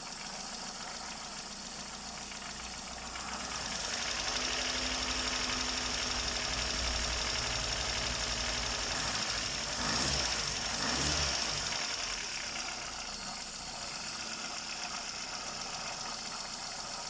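Car engine running with a knock whose cause is not known: it remains after new piston rings and connecting-rod bearings were fitted and the cylinder head was overhauled. The engine speed shifts in the middle, dipping and picking up again twice.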